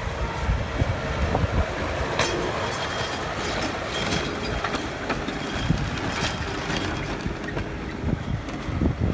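Case IH JX65C tractor's diesel engine working under load as it pulls a mouldboard plough through stubble, with scattered clicks and rattles from the plough and wind buffeting the microphone.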